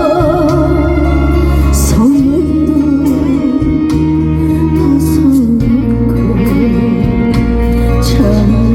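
Trot song played loudly, with a steady bass and a wavering lead melody line.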